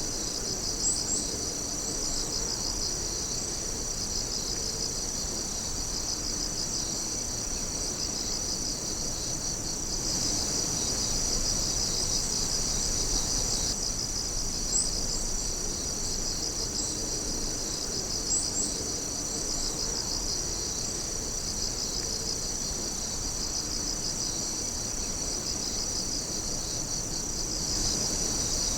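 Night-time insect chorus: a steady, high-pitched trilling with a quick, even pulsing chirp within it and a few brief higher chirps.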